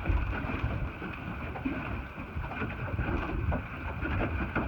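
Wind buffeting the microphone in an uneven low rumble, over the steady noise of a boat on the water.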